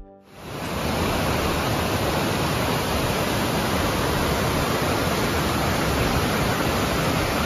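Mountain creek rushing over boulders in whitewater rapids, a steady, dense rush of water that swells in over the first second.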